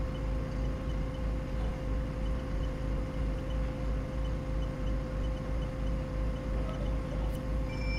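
Doosan 4.5-ton forklift engine idling, heard from inside the cab: a steady low rumble with a hum, and faint quick ticking about three or four times a second. A high steady beep starts just before the end.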